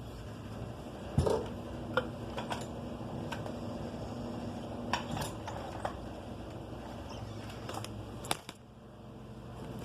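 Metal tools and small metal engine parts clinking and knocking while being handled, a few sharp clicks spaced a second or more apart, over a steady low hum.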